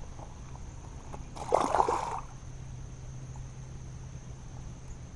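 A single short splash of water about a second and a half in, as the caught fish is let go back into the pond.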